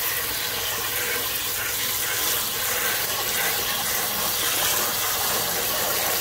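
Kitchen tap running in a steady stream into a plastic bowl of roselle calyxes, filling it with water to wash them.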